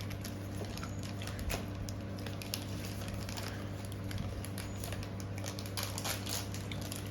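Scattered light clicks and rustles, as of snack packages being opened and handled, over a steady low hum.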